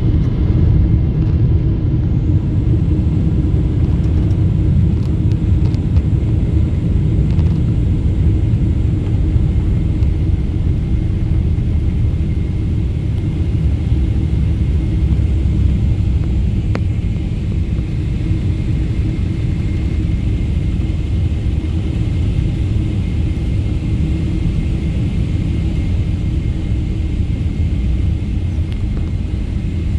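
Steady low rumble of engine and airflow noise inside the cabin of a Boeing 777 with GE90 engines on final approach, heard from a window seat beside the engine. A faint high whine comes in over the second half.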